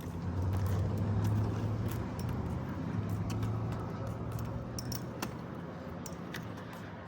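A motor vehicle passing by: a low engine hum that swells in the first second, holds for a few seconds and then slowly fades as it moves away.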